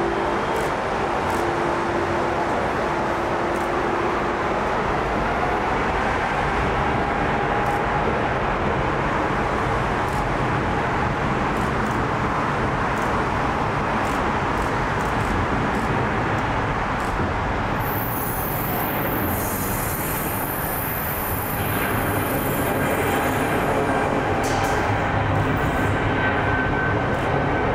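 Boeing 777 freighter's twin jet engines and rolling airframe making a steady roar with a deep rumble as it rolls out on the runway after touchdown, getting a little louder about three-quarters of the way through.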